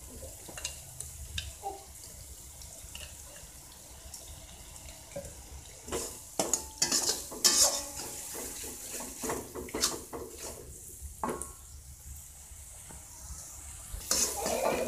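Blended spice paste sizzling in hot oil in a wok while a metal spatula stirs it, scraping and clinking against the pan in spells over a steady sizzle.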